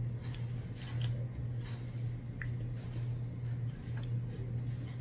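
Close-up eating sounds: chewing french fries with small mouth clicks and soft rustles of the paper basket liner as fries are picked up, over a steady low hum.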